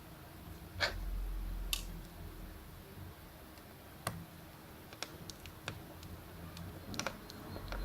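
Scattered light clicks and taps of small tools and tiny parts handled during smartphone disassembly, with a quick cluster of clicks about five seconds in and another near the end.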